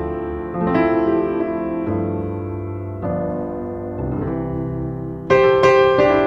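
Background piano music: slow sustained chords with a bass line, a new chord struck about once a second.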